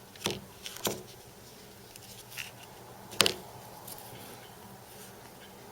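Handling noise from thick sewn leather samples: a few short knocks and rustles, the loudest about three seconds in, over a faint steady hum.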